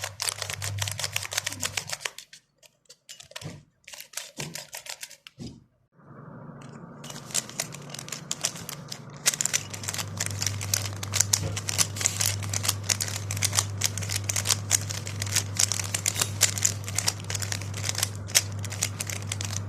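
A cheap, non-magnetic plastic 3x3 speed cube with tiled faces being turned fast, making rapid, dense plastic clicking as its layers snap past each other. About two seconds in the turning thins to a few scattered clicks, then picks up again into steady fast turning.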